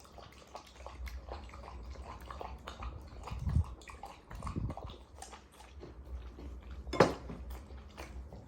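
Chocolate Labrador retriever eating, with a run of small clicks and knocks and a sharp clatter about seven seconds in.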